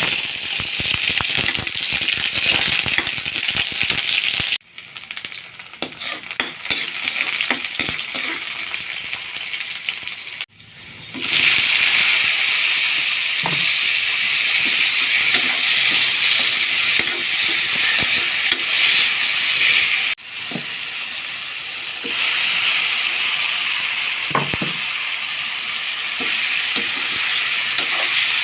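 Food sizzling as it fries in a pan, a steady hiss with scattered small pops and clicks.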